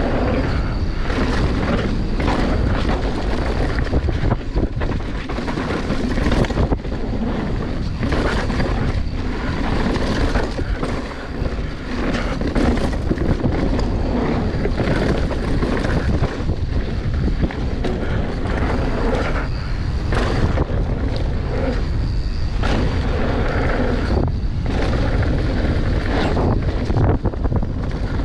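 Wind rushing over the microphone of a mountain bike riding fast down bike-park trails, with tyre noise on dirt and frequent short knocks and rattles from the bike over rough ground.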